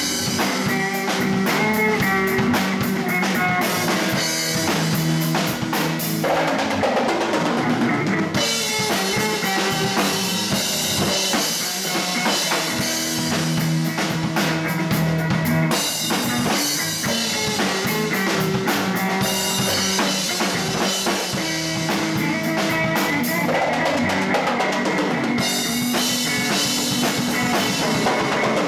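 Live blues band playing an instrumental passage: a Ludwig drum kit driving the beat with bass drum, snare and cymbals, under electric bass and electric guitar. The cymbal wash drops out and comes back several times.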